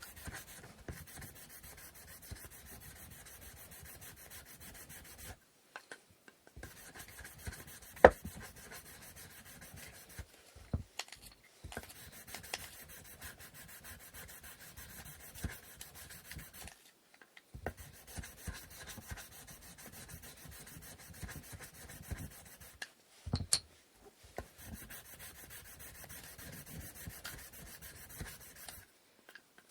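Sandpaper rubbed by hand over the wooden parts of an inkle loom, in long runs of quick back-and-forth strokes with short pauses between them. A sharp knock of wood stands out about eight seconds in.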